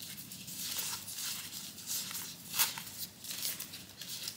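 Stack of Australian $50 polymer banknotes being handled and leafed through: a run of crisp rustles and flicks, the sharpest a little after two and a half seconds in.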